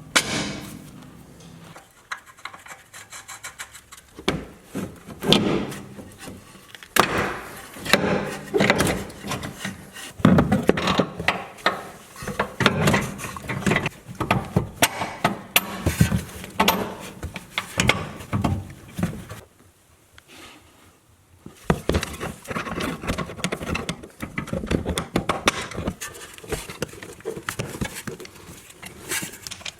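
Hand-tool work on a car's front suspension: irregular scraping, rubbing, clicks and knocks of tools and metal parts being worked, pausing briefly about two-thirds of the way through.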